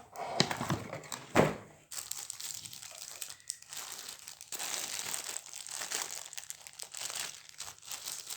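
Packaging being handled during an unboxing: a couple of sharp knocks in the first second and a half, the loudest about 1.4 s in, then continuous crinkling and rustling of wrapping.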